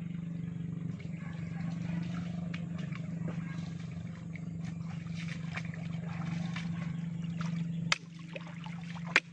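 Shallow water trickling and sloshing around a person wading in a pond, over a steady low hum that cuts off about eight seconds in. Two sharp clicks follow near the end.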